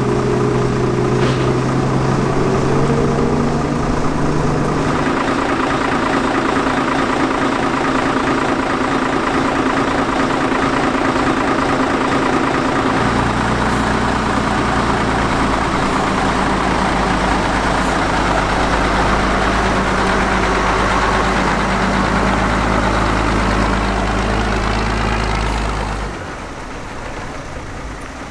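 A 1960s truck engine running, its note changing about five seconds in and dropping to a deeper, heavier sound near the middle, then getting quieter near the end.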